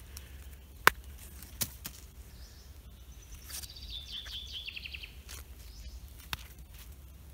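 Quiet forest ambience: a songbird sings one rapid trill that falls in pitch about halfway through. A few sharp clicks sound from the mushroom being handled close to the microphone, the loudest about a second in.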